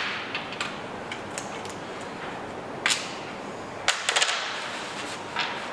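Scattered light, sharp clicks and taps from hand work on the engine's timing-belt area: a single one about three seconds in and a quick cluster around four seconds, over low room hiss.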